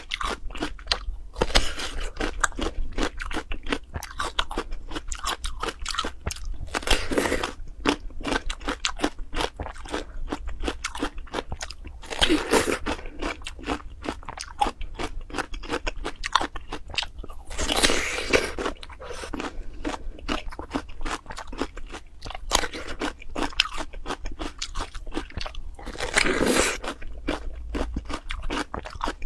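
Close-miked crunchy chewing of a mouthful of food, a dense run of small crunches, with louder crunching bites about every five seconds.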